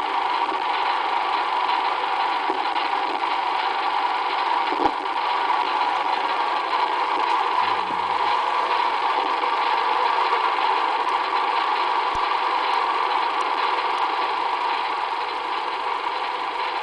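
Steady rushing background noise with no clear calls, from the recording machine and traffic on a nearby road, in a MiniDisc field recording played back from a computer and re-recorded.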